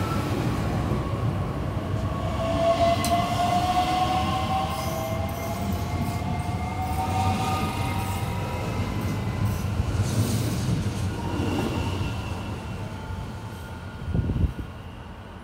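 Two coupled DB Class 442 (Bombardier Talent 2) electric multiple units pulling away, their traction drive whining up in pitch as they accelerate, over the rumble of the wheels. The sound fades as the train draws off.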